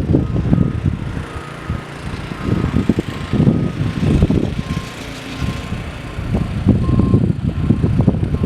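Backup alarms beeping in a steady series of short tones, about two a second, over the uneven low rumble of heavy vehicle engines. The beeping drops to a slightly lower pitch about halfway through, as if a second alarm takes over.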